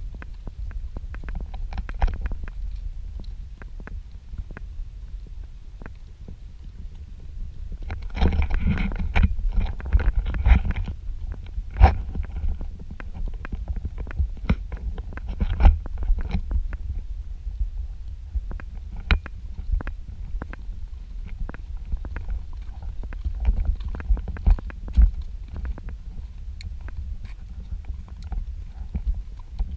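Low, constant rumble and knocking on a camera carried on horseback, from the horse's movement and wind on the microphone, with many scattered sharp knocks. About eight seconds in, a pitched sound with several tones comes in for some three seconds.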